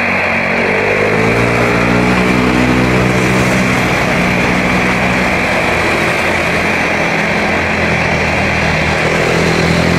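An Airbus A320's twin IAE V2500 jet engines at takeoff power on the departure run, a loud steady jet noise. Its engine tones glide down in pitch over the first few seconds as the aircraft goes past.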